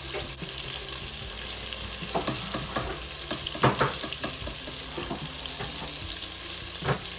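Sliced sausage sizzling in oil in a pot, with a steady hiss and a scatter of ticks and clicks from dry instant rice poured from a cardboard box into a plastic cup.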